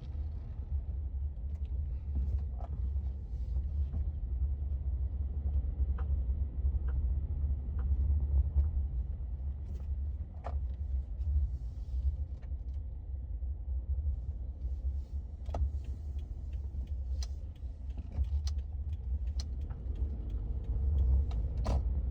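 Subaru car driving: a steady low road rumble, with irregular short sharp clicks and knocks, about a dozen of them, coming through it. This is the kind of abnormal noise from the suspension or drive shafts that such a car makes.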